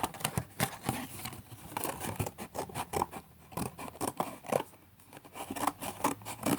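Scissors cutting into a thin cardboard box to open it up: an irregular run of snips and papery crackles.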